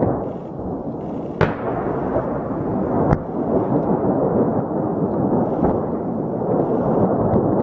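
Two sharp bangs, about a second and a half apart, the first with a short fading tail, over a steady low rushing noise.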